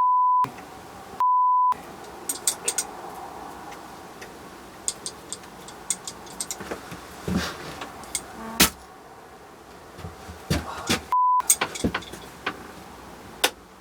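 Three short steady 1 kHz censor bleeps, each replacing the sound completely: one at the start, one about a second in, and a brief one about eleven seconds in. Between them come scattered light clicks and knocks of handling in the workshop.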